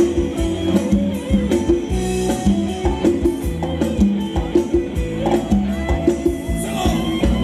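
Live band playing upbeat Thai ramwong dance music, with a fast, steady drum and percussion beat over bass.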